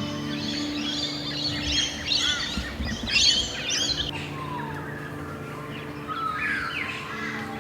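Several birds chirping and calling: a dense run of high, quick chirps over the first four seconds, then fewer, lower calls with sliding notes.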